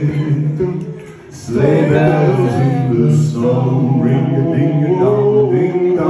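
Male voices singing a song into microphones with no instrumental backing. The singing drops away briefly about a second in, then comes back.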